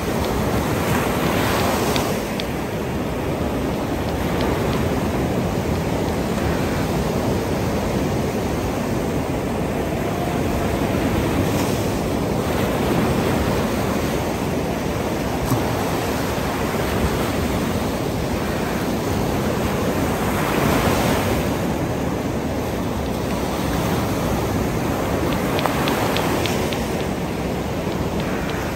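Ocean surf washing in and breaking at the shoreline, a steady wash that swells several times as waves come in.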